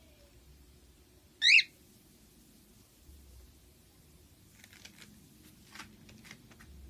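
A pet bird gives one short, loud, high chirp about a second and a half in, followed near the end by several faint, short, scratchy chirps.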